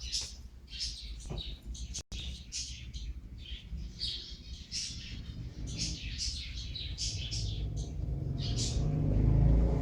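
Small birds chirping over and over, with short high chirps coming every fraction of a second, over a steady low rumble that swells near the end.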